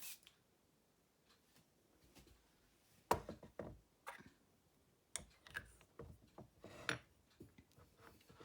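Scattered light knocks and clicks of small objects being handled, the loudest about three seconds in and again near seven seconds.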